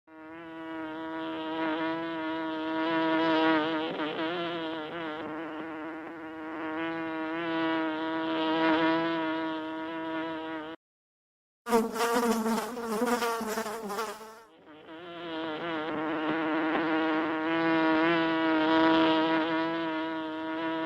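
Bees buzzing in a steady, slightly wavering drone. It cuts off for about a second near the middle, gives way to a brighter, lower-pitched buzz for about three seconds, and then the first buzzing returns.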